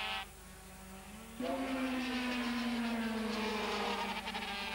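Two-stroke engines of 80 cc Grand Prix racing motorcycles running at high revs on track. The sound drops away briefly near the start, comes back strongly after about a second and a half, and its pitch then falls slowly.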